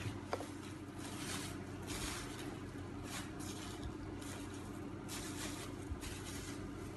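Light clinks and scrapes of a ladle dipping thick batter from a bowl and pouring it into the moulds of an electric mini cake maker, over a steady low hum.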